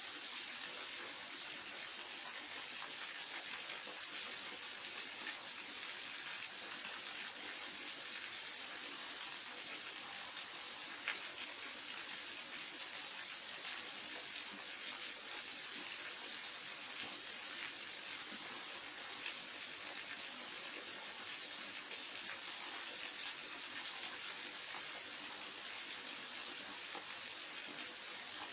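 Waterfall: a steady rush of falling water, an even hiss weighted toward the high end that never lets up.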